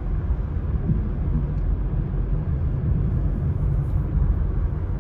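Steady low rumble of a car's engine and tyres heard from inside the cabin while driving on a snow-packed road.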